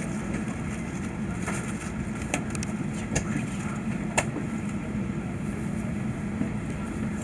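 Steady low hum of an Airbus A380's cabin, heard from inside the passenger cabin, with a few sharp clicks and knocks about every second.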